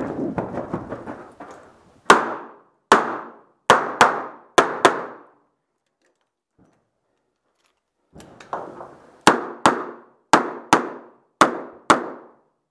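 A revolver fired in two strings of six shots, separated by a pause of about three seconds for a reload, each shot sharp with a short ringing tail. Shuffling movement noise comes before the first string and again just before the second.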